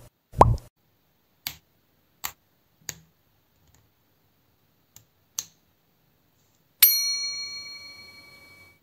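A short falling plop sound effect, then a few sharp clicks of LEGO bricks snapping together. About seven seconds in, a bright bell-like ding rings out and fades over about two seconds.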